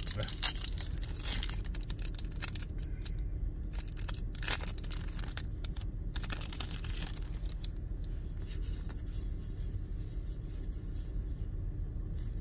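Foil wrapper of a Pokémon booster pack being torn open, with a sharp rip about half a second in, then crinkling and rustling as it is peeled back. After that, quieter handling noise from cards being pulled out, over a steady low hum.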